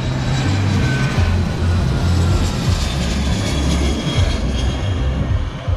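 A small jet flying low on landing approach, its engines giving a steady whine that falls slowly in pitch as it passes.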